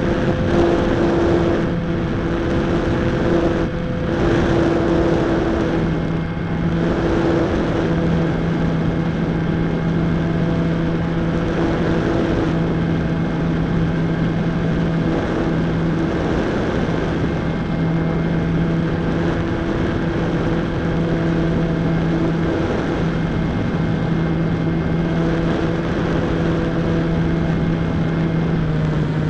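Electric motor and propeller of a GWS Slow Stick park-flyer droning steadily in flight, heard from a camera mounted on the plane, with wind rushing over the microphone. The drone's pitch drops slightly about six seconds in, then holds.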